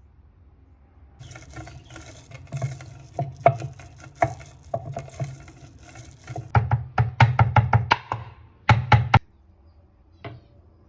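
Knife chopping ingredients on a wooden cutting board: irregular sharp strikes, then a quick run of about six chops a second, then two more.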